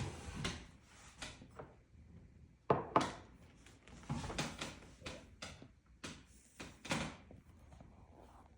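Irregular soft knocks and rustles close to the microphone, two sharper knocks about three seconds in.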